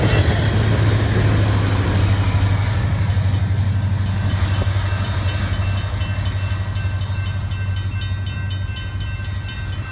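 A Union Pacific freight train's rear diesel locomotive passing and pulling away: a steady low engine drone over wheel and rail noise, fading as it recedes.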